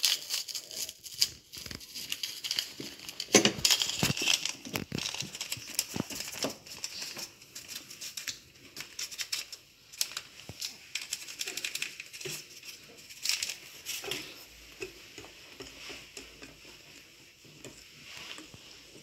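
Paper sachet of baking powder crinkling and rustling as it is handled and emptied over a bowl, with many small clicks and taps, busiest in the first half and thinning out later.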